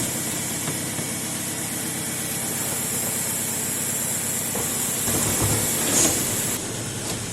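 Garbage truck running with a steady hiss over its engine, swelling briefly near the end.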